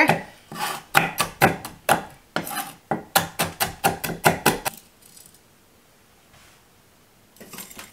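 Black peppercorns being cracked and crushed under a chef's knife on a wooden cutting board: a quick run of sharp knocks, about three or four a second, that stops about five seconds in, followed by a few faint clicks near the end.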